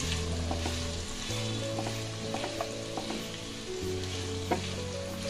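Sliced onions and potato chunks sizzling as they fry in hot oil in a non-stick karahi, stirred with a wooden spatula that gives scattered scrapes and taps against the pan, one sharper knock near the end.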